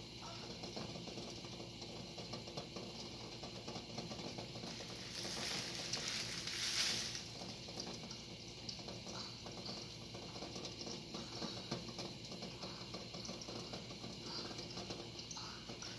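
Pot of eggs boiling: a steady, fine pattering of bubbling, with a hiss of steam that swells about five seconds in and fades two seconds later.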